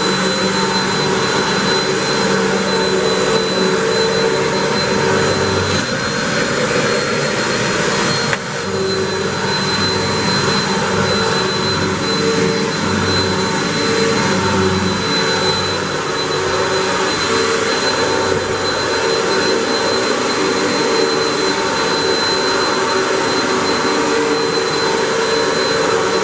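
Hoover WindTunnel 3 Pro Pet upright vacuum cleaner running steadily, with a high, steady motor whine over the rush of air.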